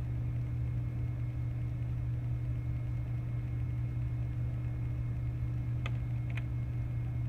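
Steady low background hum, like an appliance or fan running, with two faint clicks close together about six seconds in.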